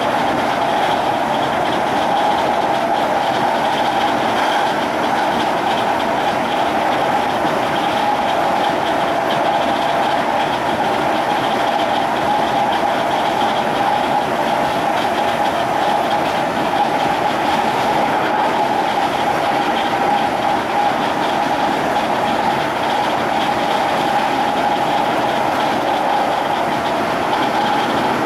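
Interior sound of a Class 321 electric multiple unit running at a steady speed: the whine of its Brush TM2141C traction motors holds one steady pitch over the constant rumble of wheels on the rails.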